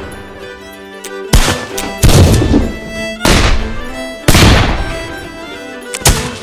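Black powder firearms fired one shot at a time: about five loud reports, each with a long decaying rumble. Background music runs under them.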